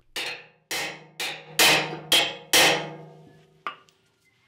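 Big hammer striking a steel round bar against a Land Rover chassis's leaf-spring mounting: six hard blows, about two a second, each with a metallic ring, then a lighter blow near the end. The blows are spreading the spring fixing points on the chassis, which sit about 4.5 mm too close together for the spring to fit.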